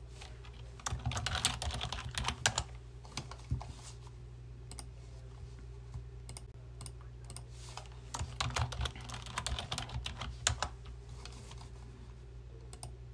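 Typing on a computer keyboard: a quick flurry of keystrokes about a second in, scattered single keys, then another flurry around eight seconds in. A steady low hum runs underneath.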